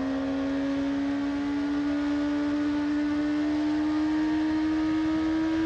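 Motorcycle engine and riding noise at a steady cruise, a constant hum whose pitch creeps slowly upward, muffled with the higher frequencies cut, as heard through earplugs.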